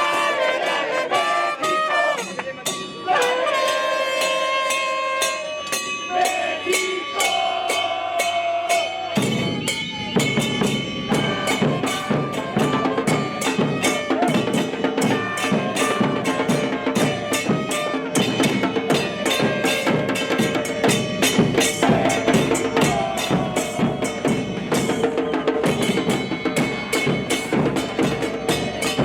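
Music: brass playing a melody over a steady drum beat, with heavier drums and bass coming in about nine seconds in.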